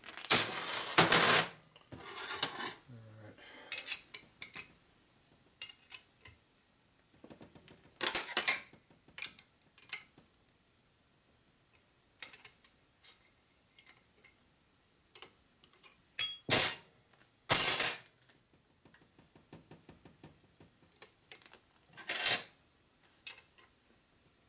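Metal hand tools and engine parts clattering and clinking against a steel workbench, in several separate bursts of rattling with small clicks and quiet stretches between.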